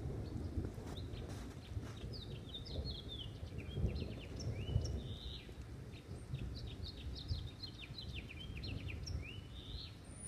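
Continuous low rumble of thunder from a thunderstorm's mostly intracloud lightning, swelling a few times. Over it a songbird sings a long run of quick, sweeping chirps.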